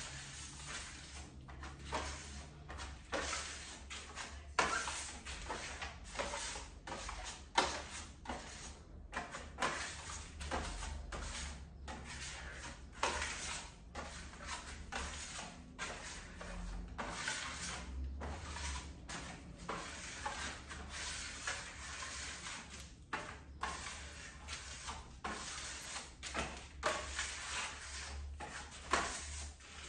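Irregular short scraping and dabbing strokes of a painting tool working tinted paint across a wall, about one or two a second: the mottling stage of a faux marble finish.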